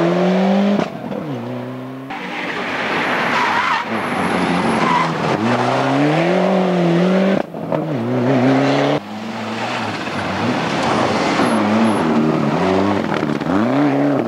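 Ford Escort RS Cosworth rally car's turbocharged four-cylinder engine revving hard through the gears on several passes, its pitch climbing and then dropping at gear changes and braking, with tyre noise. The sound breaks off abruptly several times between clips.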